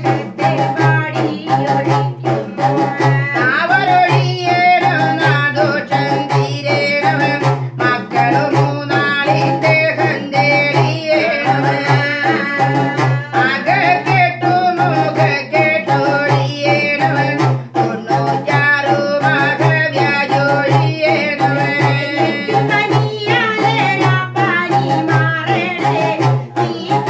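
Pulluvan pattu, the Kerala serpent-worship folk song, sung over a steady low drone and a regular twanging, plucked rhythm from the pulluvan kudam, a pot drum sounded through a plucked string.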